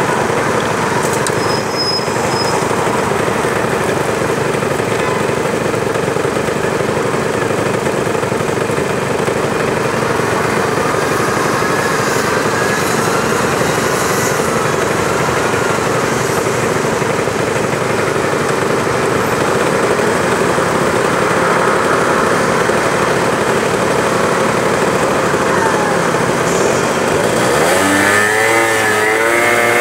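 Peugeot Jet C-Tech 50cc two-stroke scooter idling in street traffic, then revving up with a rising pitch near the end as it pulls away.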